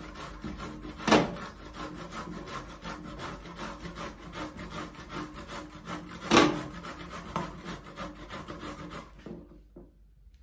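Courgette being grated on a flat metal hand grater: a steady rhythm of rasping strokes that stops about nine seconds in. Two sharp knocks stand out, about a second in and about six seconds in.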